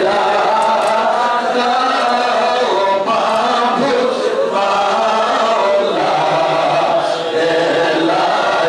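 A man chanting an Islamic munajat (supplication prayer) into a handheld microphone, in long drawn-out melodic phrases with short breaks about three and seven seconds in.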